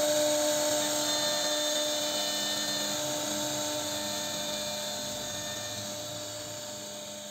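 CNC router spindle running at high speed with its bit carving a wooden panel: a steady whine over the hiss of cutting, slowly fading out.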